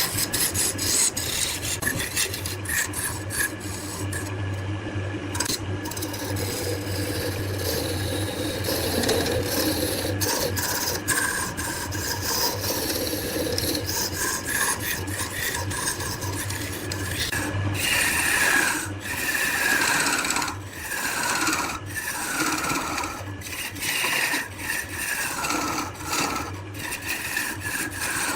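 A tool scraping and rasping against wood turning on a lathe, with a low hum. About two-thirds of the way through the hum drops away and the scraping comes in repeated strokes, about one a second, each with a short falling squeak.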